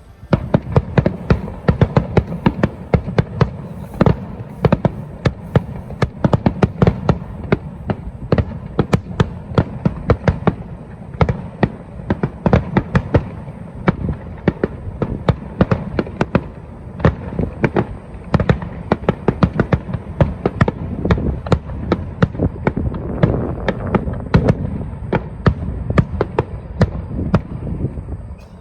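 Fireworks display in a rapid barrage: sharp shell bursts and cracks, several a second, over a continuous low rumble of booms.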